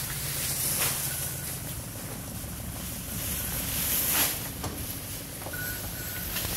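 An engine running steadily at idle, a low even hum, with a few brief rustles or knocks over it.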